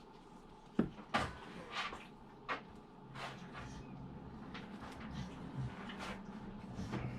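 Sharp clicks, knocks and short scrapes of hard plastic and a tool being worked by hand as tough plastic is cut and pried off an RC boat's shaft flex cable, most of them in the first three and a half seconds. A faint low hum comes in about three seconds in.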